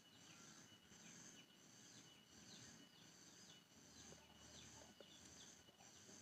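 Near silence with faint wildlife chirping: a high-pitched call repeating about twice a second, each with a short falling note.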